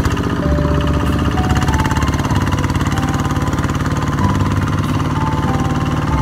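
A small engine running steadily at a fast, even beat.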